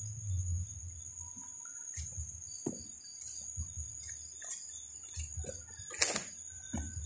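Crickets keep up a steady high chirring throughout. Footsteps and rustling on muddy ground break in irregularly, with a sharper knock about six seconds in.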